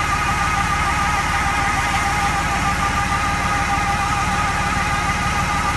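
Engine-driven vegetable-washing machine running steadily: a fast, even low pulsing of the motor with a steady whine on top.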